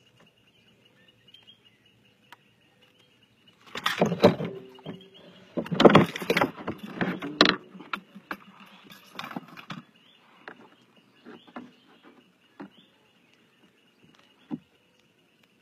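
Irregular rustling, bumps and clatter close to the microphone, loudest about four seconds and six to seven seconds in, then scattered light knocks. Under it runs a faint steady high insect drone.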